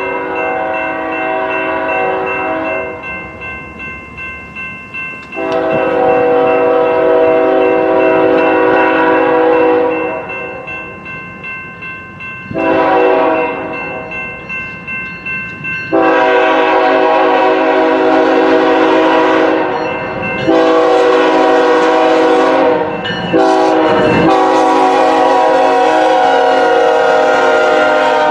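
Freight locomotive's multi-chime air horn sounding a chord in separate blasts: two long, one short, then a long one drawn out to the end. This is the long-long-short-long signal for a grade crossing. Between the blasts the train's wheels click rhythmically over the rail joints.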